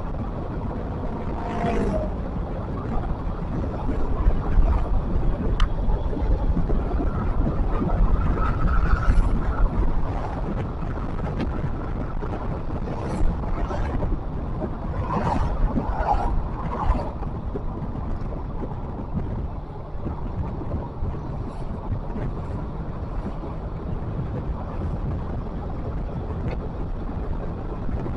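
Steady low rumble of a moving vehicle, with wind noise on the microphone. A short pitched sound comes near the start, and a few brief higher sounds come about halfway through.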